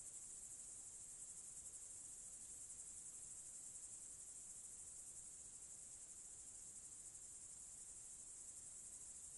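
Crickets chirring steadily in tall grass: a faint, unbroken high-pitched buzz made of very rapid pulses.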